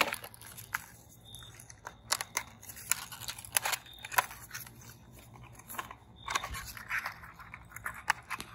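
Plastic and cardboard fishing-lure packaging being opened by hand: irregular sharp clicks and crinkles, with a denser crackling stretch about two-thirds of the way through.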